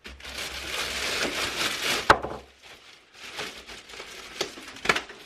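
Handling of the plastic parts of a bagless vacuum cleaner: rustling and crinkling for about two seconds, a sharp click about two seconds in, and another click near the end.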